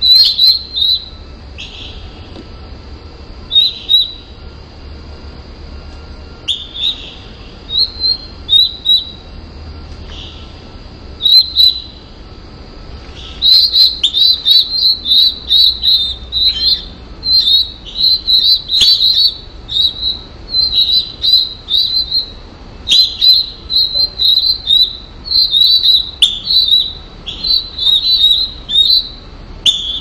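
Cardinal nestlings giving begging calls in the nest: short, high-pitched chirps. A few come singly at first, then from about halfway through they turn into rapid, nearly continuous chirping as an adult comes to feed.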